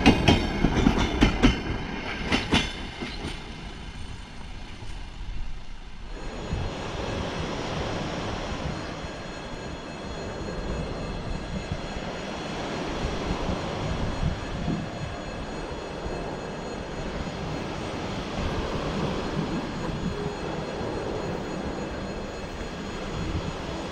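Last passenger coaches of a train passing close by, their wheels clattering in quick clicks over the rail joints, fading within a few seconds. About six seconds in, the sound switches abruptly to a steady rushing outdoor background.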